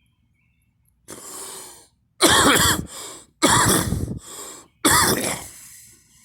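A person coughing: a quieter first cough about a second in, then three loud coughs about a second and a quarter apart, each starting suddenly and trailing off.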